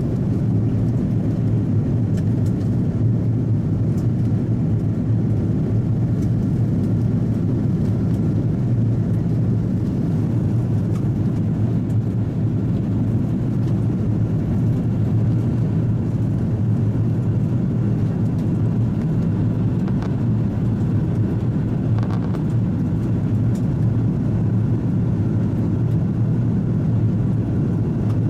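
Steady cabin noise of an Airbus A330-300 in flight: an even low rumble of engines and airflow heard from inside the passenger cabin.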